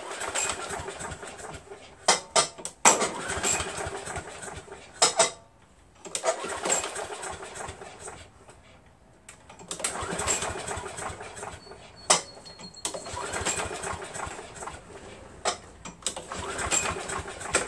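Briggs & Stratton 6.75 engine on a Craftsman vac chipper being pull-started again and again: about six rope pulls of a second or two each, cranking without catching. Its carburetor has a big fuel leak, and the gas and the sprayed-in starting fluid have run out of it.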